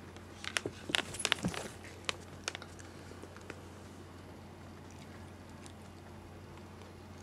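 A quick cluster of light clicks and taps close to the microphone in the first couple of seconds, as the cats' faces and whiskers brush against the phone, then only a faint steady hum.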